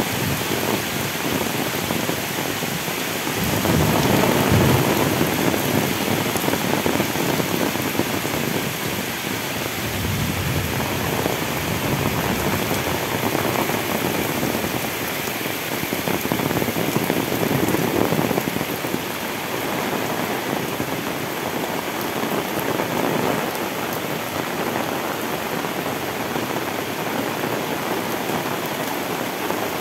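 Heavy rain pouring steadily onto a paved lane and roadside trees and bushes, swelling louder about four seconds in.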